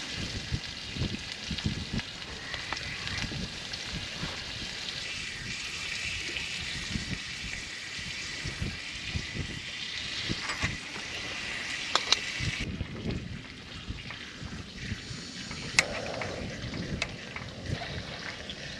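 Meat sizzling on a small grill, a steady hiss that drops away abruptly about two-thirds through. Scattered clicks and light knocks of small metal camping gear being handled.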